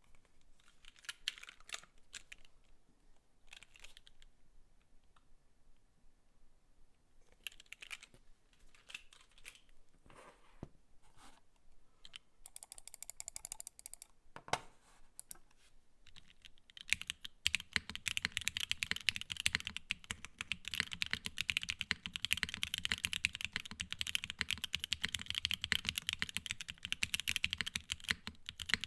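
Void65 mechanical keyboard with a polycarbonate plate, top mount, Gateron X linear switches, Kailh BCP stabilizers, ABS keycaps and no foam, being typed on. Scattered single keystrokes and short runs come first. Past the halfway point it turns into fast, continuous typing.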